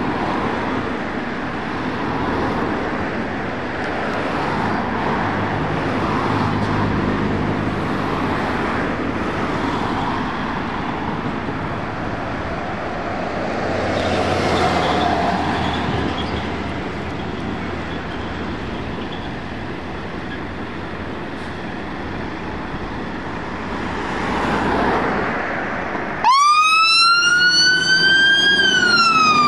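A Scania fire engine's (aerial rescue pump's) diesel engine running as the truck pulls slowly out of the station. About 26 seconds in its wail siren switches on abruptly, sweeping up in pitch and then starting to fall.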